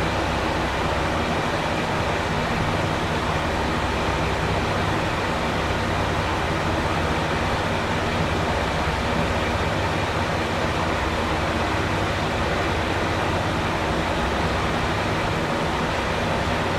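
JR East KiHa E130-500 series diesel railcar's engines running steadily as the train creeps slowly in. The engine hum stays level throughout, over a steady rushing noise.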